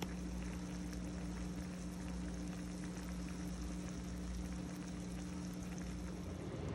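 Liquid boiling steadily in a pot, likely the chicken feet cooking, with a steady low hum underneath that stops shortly before the end.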